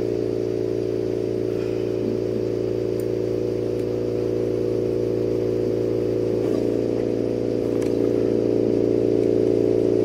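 Steady machine hum, several constant tones with a light hiss over them, from a lampworking bench torch burning and the studio equipment running with it; a few faint clicks.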